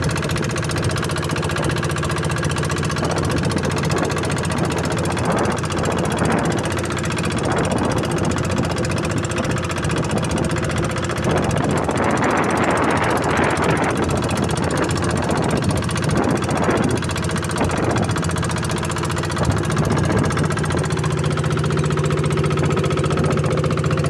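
Fishing boat's engine running steadily with a rapid knocking beat. About twelve seconds in, a rush of noise rises over it for a couple of seconds.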